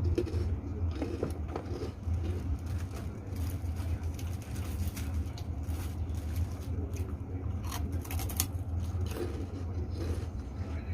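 Crunching and chewing of fried krupuk crackers: irregular crisp crunches in clusters, over a steady low hum.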